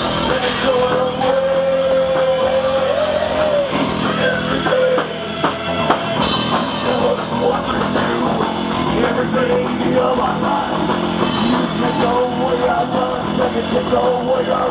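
Rock band playing live: electric guitars and a drum kit, loud and continuous.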